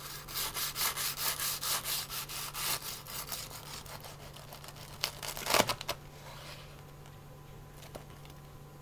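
Large chef's knife sawing back and forth through the crisp breadcrumb crust of a chicken cordon bleu roll down onto a cutting board, at about four quick strokes a second for the first three seconds. The strokes then slow and fade, with one brief louder scrape about five and a half seconds in.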